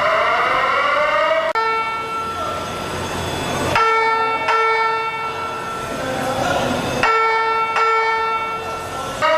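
Fire alarm signal: a rising whoop tone repeats, then gives way to bell-like electronic chime tones that strike several times and ring out. The whoop starts again near the end.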